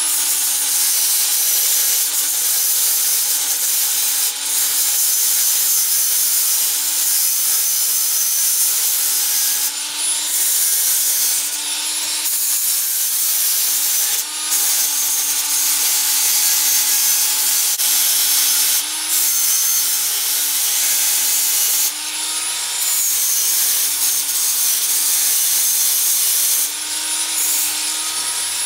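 Cordless rotary tool running with its small wheel pressed against a solder patch on a stainless-steel muffler, smoothing it down: a steady motor whine under a loud grinding hiss. The hiss drops out briefly several times as the wheel comes off the metal.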